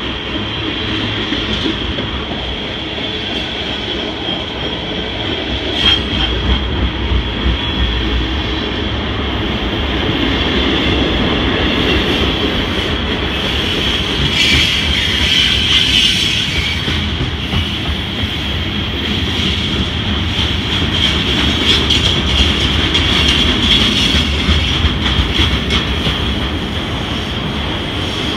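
Freight train of tank cars, covered flatcars and autorack cars rolling past at close range: a steady rumble and rattle of the cars, with a high steady wheel squeal that grows louder about halfway through, and a few sharp clacks of wheels over the rail about six seconds in.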